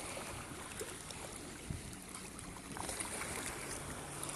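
Shallow seawater gently sloshing and lapping, with a scattering of small splashes and clicks.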